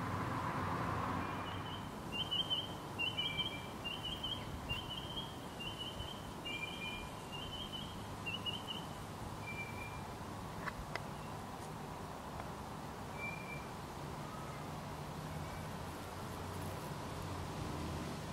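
A bird calling: a run of about a dozen short, evenly repeated chirps, under two a second, that stops after several seconds, followed by a few single notes. Steady low background hum throughout.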